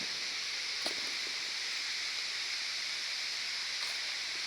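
Steady rushing hiss of a waterfall's falling water, with a faint click about a second in.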